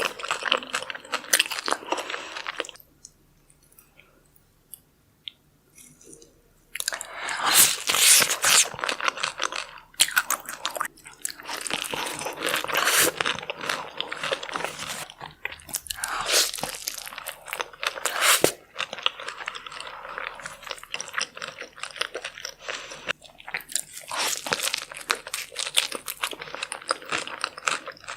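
A person biting into and chewing crunchy food, with dense crackling crunches that stop for a few seconds near the start and then carry on.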